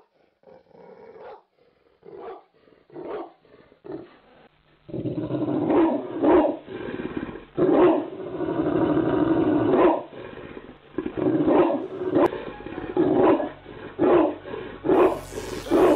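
Dog barking and growling, slowed down and lowered in pitch, a run of separate barks that grows louder and denser about five seconds in.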